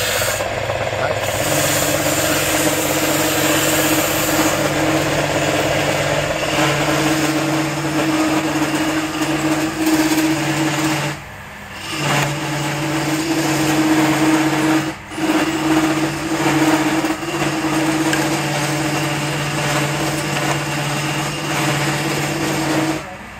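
Wood lathe running with a steady motor hum while a hand-held turning chisel scrapes and cuts the spinning wood, throwing off shavings. The sound cuts out briefly twice near the middle.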